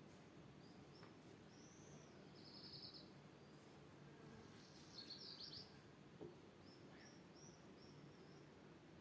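Faint birdsong over a steady low background hiss: scattered high chirps, a short trill, and a brief burst of rapid notes about halfway through.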